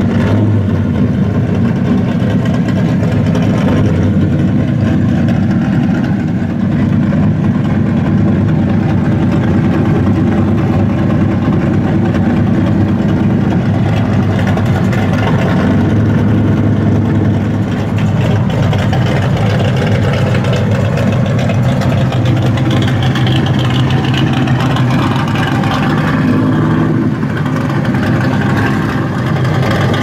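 1966 Ford Mustang Shelby GT350's V8 idling steadily through its exhaust.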